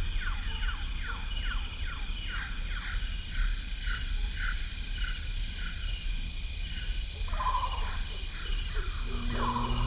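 A chorus of animal-like chirping calls: short falling chirps about three a second over a steady high trill and a low rumble. About seven seconds in, the falling chirps stop and a lower call takes over.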